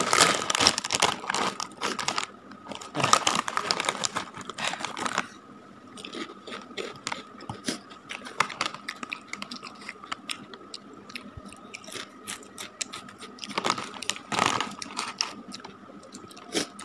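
Plastic crisp bag torn open and crinkled for the first few seconds, then potato chips crunched and chewed with the mouth close to the microphone. A second burst of crinkling and crunching comes near the end.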